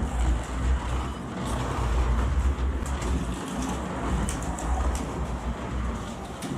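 Carrera Digital slot car Mustang lapping the plastic track on its stock, untrued tyres: the small electric motor whirs and the track rumbles, swelling and fading every second or two as the car goes round, with a few light clicks.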